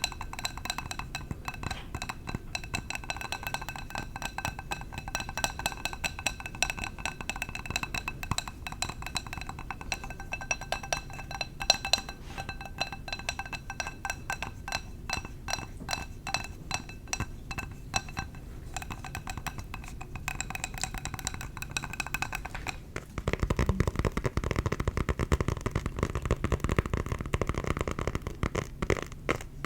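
Rapid, continuous tapping on a glass candle jar, the glass ringing with several clear tones under the taps. About 23 seconds in it switches to duller tapping on a leather luggage tag, without ringing.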